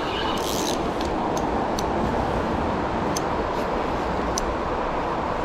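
Steady rushing of a flowing river, with a few faint sharp ticks scattered through it.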